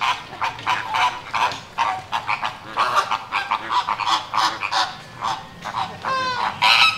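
A flock of Caribbean (American) flamingos honking and chattering, with many short calls overlapping one another and two longer, falling calls near the end.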